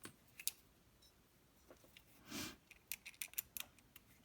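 Faint small metal clicks and taps from a lock and its tools being handled while it is disassembled, with a short rustle about halfway through and a quick run of clicks after it.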